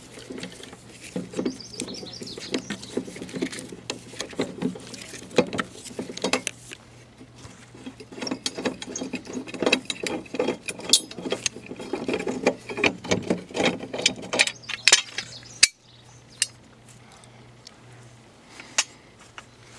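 Hand-tool work on a lawn mower's engine mount: a wrench and metal parts clicking, clinking and rattling in quick, irregular strokes. The clatter stops abruptly about three-quarters of the way through, leaving only a few isolated clicks.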